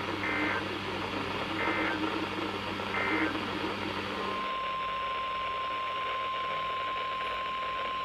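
Three short warbling data bursts, about a second apart, over radio hiss and hum: the EAS end-of-message code closing a NOAA Weather Radio warning. About four seconds in, the sound cuts and a steady single-pitch 1050 Hz NOAA Weather Radio alert tone begins, announcing the next alert.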